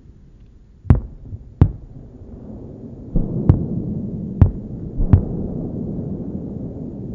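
Fireworks being launched: a series of about seven sharp thumps, irregularly spaced, with a low rumble that builds up behind them from about three seconds in.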